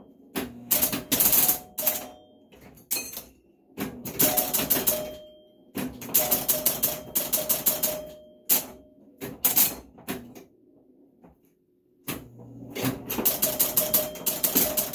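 Electromechanical pinball machine in play: bursts of rapid clicking and clacking from its score reels, relays and stepper units as the ball scores, with a brief near-quiet lull about eleven seconds in. A short ringing note sounds through some of the bursts.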